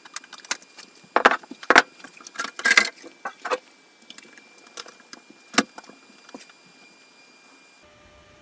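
Clicks, knocks and scrapes of a mini-tower server's case cover being lifted off and a Dynamat Xtreme–lined dampening cover fitted in its place, most of them in the first six seconds. Under it the server's fans give a faint steady hum whose tone shifts near the end, as fitting the cover changes the fan speeds.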